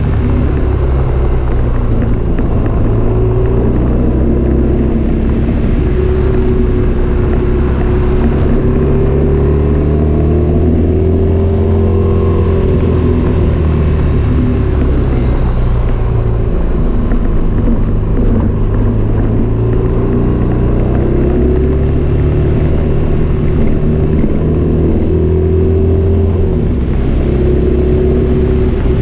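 Motorcycle engine running at road speed through a series of curves, its pitch rising and falling gently with the throttle.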